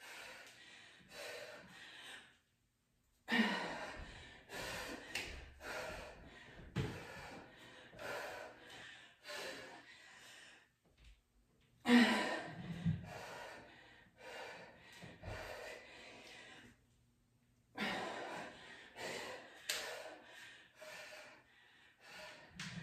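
A woman breathing hard through a kettlebell swing, clean and reverse-lunge set, with sharp exhalations and gasps in quick succession at each rep.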